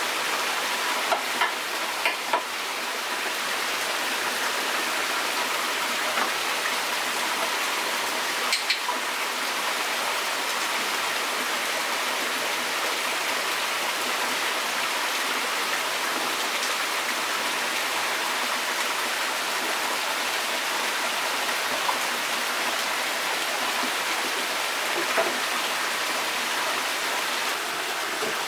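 Steady rush of running water, even and unbroken, with a few light clicks scattered through it.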